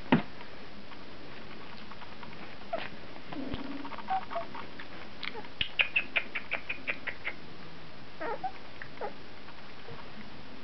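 Two-week-old Brittany puppies giving small high squeaks and chirps, with a quick run of rapid squeaks about halfway through and a sharp click right at the start.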